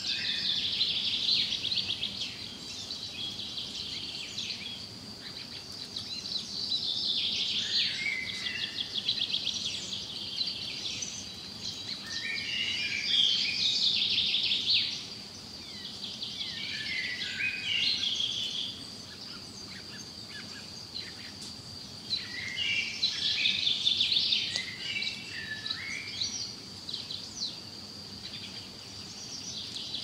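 Songbird singing in about five separate phrases of fast trills and chirps, a few seconds apart, over a steady faint high-pitched whine.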